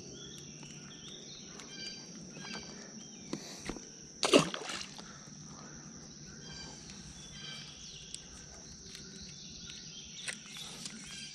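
Insects droning steadily at a high pitch, with short repeated chirps over it. About four seconds in, one brief loud splash as the just-unhooked bluegill hits the water.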